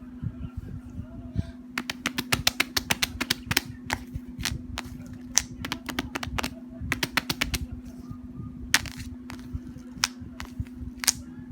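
Mouth-sound effects: sharp mouth clicks, a fast run of about eight a second from about two seconds in, then scattered single clicks and short clusters, over a steady low hum.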